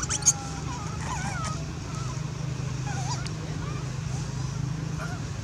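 Infant macaques calling with thin, high, wavering squeaks and coos: many short gliding calls one after another. There is a louder, sharp squeal right at the start, over a steady low hum.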